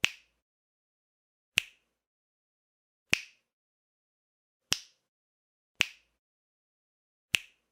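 Single finger snaps, six sharp clicks about one every second and a half, with dead silence between them.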